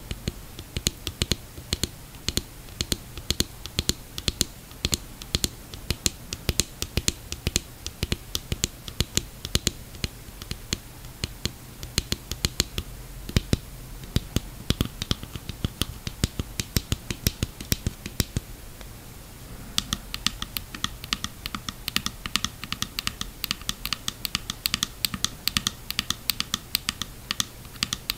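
Long fingernails tapping rapidly on a plastic snorkel mask: a quick, uneven patter of light clicks. There is a short pause about two-thirds through, after which the taps carry a faint ringing pitch.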